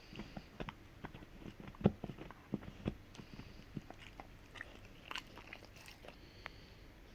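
A Rottweiler gnawing on a hard hoof chew: irregular sharp cracks and crunches as her teeth work the hoof, the loudest about two seconds in.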